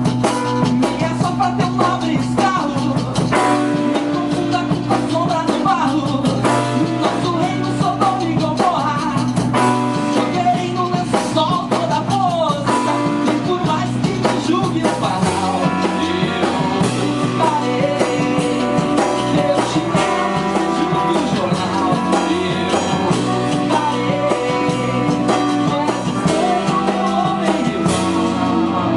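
A small band, with electric guitar, bass, drum kit and keyboard, playing a jazzy Brazilian rock song at steady full volume. Melodic lines bend up and down in pitch about ten to thirteen seconds in.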